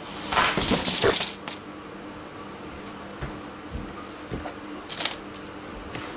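Small LEGO Technic stunt trucks whirring across a vinyl floor just after release, the whirr falling in pitch over about a second. Scattered knocks and plastic clatter follow, the loudest about five seconds in.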